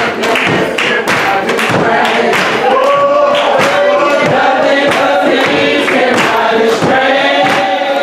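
Gospel singing in church: a lead voice with many voices of the congregation joining in, over a steady clapped beat of about three claps a second.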